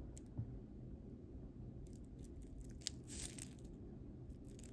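Faint light clicks of small jewelry pieces being handled, with a brief rustle about three seconds in, over a steady low room hum.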